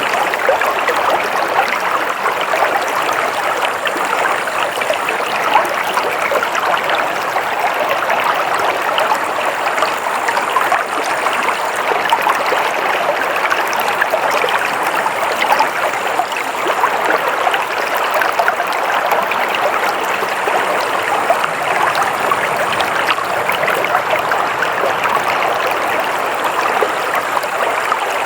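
Water flowing steadily over stones in a stream, a constant rushing with fine splashing and gurgling detail.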